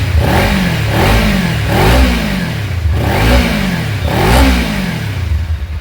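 Kawasaki Ninja 300's 299 cc parallel-twin engine being revved in about five quick blips, each rising and falling back toward idle.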